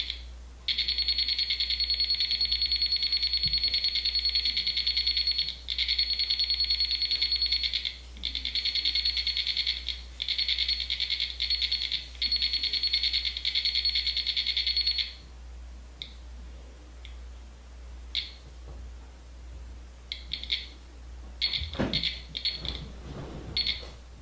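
Small electronic ghost-hunting alarm sensor going off, meaning it has been triggered. It sounds a high, rapidly pulsing beep tone for about fourteen seconds with a few short breaks, then gives scattered short beeps. Near the end there are a few soft knocks.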